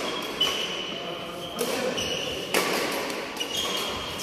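A badminton doubles rally: rackets strike the shuttlecock about four times, roughly a second apart, with short high squeaks of shoes on the court mat between the hits, in an echoing sports hall.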